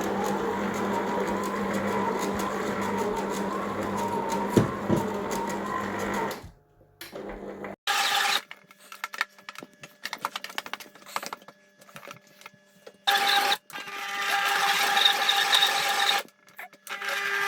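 Electric dough kneader (stand mixer) motor running steadily with a constant hum while it kneads flour, fat and milk into dough. About six and a half seconds in it drops away, then runs again in short stretches broken by near-silent gaps.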